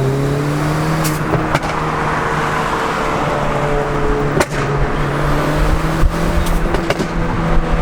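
Turbocharged car engine running steadily under way through a loud aftermarket exhaust, a constant drone over road noise, with a few sharp exhaust pops scattered through it.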